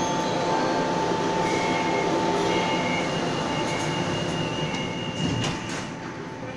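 Kaohsiung MRT Orange Line three-car electric train pulling out of an underground station behind platform screen doors: steady running noise with a constant whine and brief squeals from the wheels. About five seconds in there is a knock, and then the sound gets quieter.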